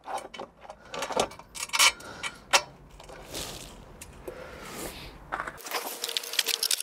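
Small metal screws and washers clicking and clinking while being handled and started by hand, with a few brief scuffing rubs between the knocks.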